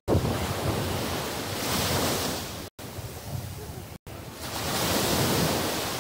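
Small waves breaking and washing up a sandy beach, the surf swelling twice, with wind on the microphone. The sound cuts out for a split second twice.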